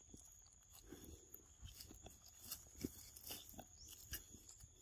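Near silence with faint, scattered wet clicks and smacks from a baby macaque sucking milk from a drink pouch held out by hand.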